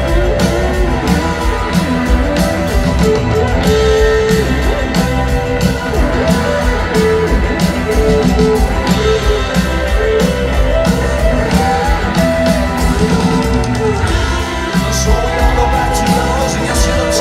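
A live rock band plays electric guitars and drums over a steady beat, heard from the audience through a large hall's PA.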